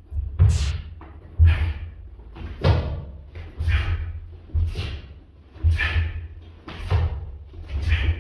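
Repeated martial-arts kicks in a sparring drill: a thud with a swish of the uniform about once a second, eight in all.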